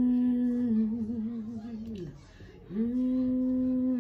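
A woman humming a tune into a wireless karaoke microphone: a long held note that breaks into a wavering run, a short pause about two seconds in, then a second held note.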